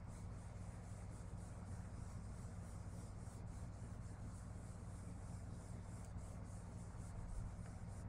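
Round ink blending brush rubbed in small circles over cardstock: a soft, steady brushing of bristles on paper as ink is blended in, over a steady low hum.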